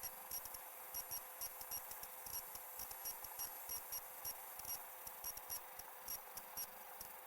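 Digital glitch sound effect: a faint hiss with a thin steady hum under it, broken by irregular short, sharp electronic clicks and ticks, several a second.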